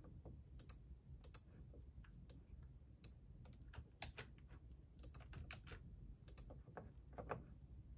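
Faint typing on a computer keyboard: scattered, irregular keystroke clicks.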